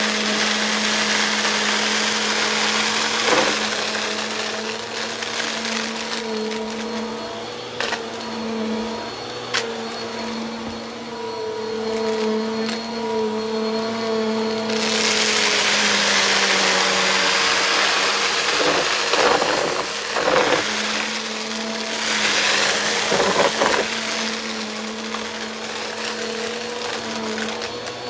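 Bissell vacuum cleaner running, a steady motor hum under a rush of air that swells and falls as the vacuum is worked. Short clicks and knocks come now and then, most of them between about 19 and 24 seconds in.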